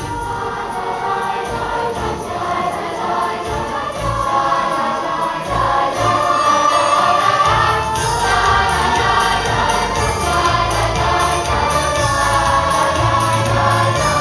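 Large youth choir of mixed voices singing together.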